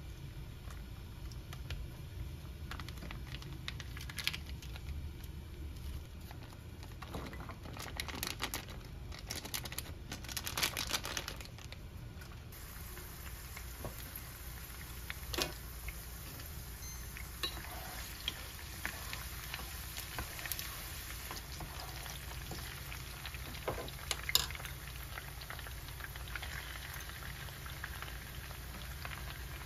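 Food cooking on a stove: a steady low hiss with scattered clicks and knocks of utensils. There is a louder rushing stretch about seven to twelve seconds in, and the hiss turns brighter from about twelve seconds on.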